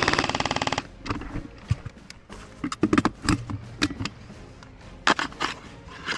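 Airsoft rifle firing a rapid full-auto burst that stops about a second in, followed by scattered single sharp clicks and knocks of shots and movement.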